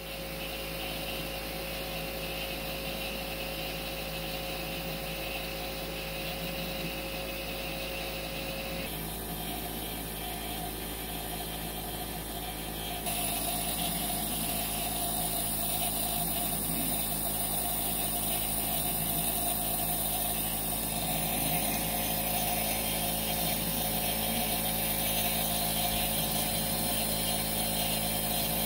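Compressor nebulizer running steadily, a continuous mechanical hum and hiss as it drives mist through the medication cup; it grows louder about thirteen seconds in.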